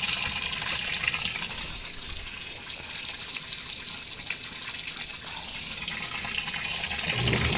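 Water gushing into a washing machine tub, easing off for a few seconds in the middle before coming back at full flow.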